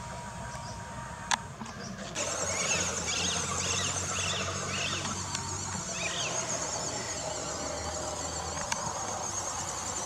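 Insects chirping in a steady high shimmer, with a run of short high squeaks a few seconds in and a low hum that stops about six seconds in.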